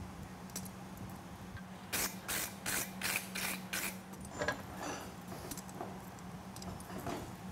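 Six quick scraping strokes, about three a second, over the red-hot riveted joint of a pair of forged steel hot fitting tongs, followed by a few light metal clicks and scrapes as the tongs are worked open and closed. The joint is heated so that it will loosen and move freely.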